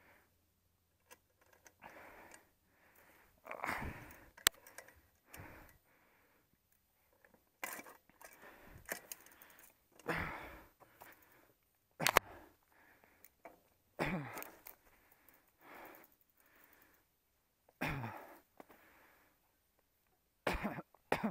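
A mountain biker breathing hard while riding, with a heavy exhale about every one to two seconds. A few sharp clicks fall between the breaths.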